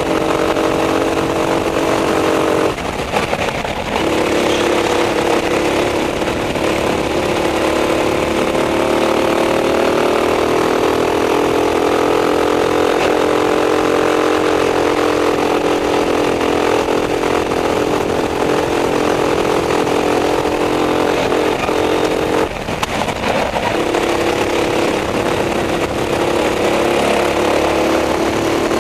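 Racing kart engine running at high revs, heard from on board the kart, its pitch climbing slowly along a straight. The revs drop briefly twice, about three seconds in and again after about 22 seconds, then build back up.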